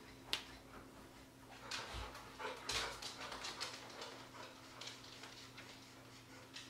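Chisel tip of a Copic marker rubbing across mixed media paper in a series of short strokes, with a sharp click near the start.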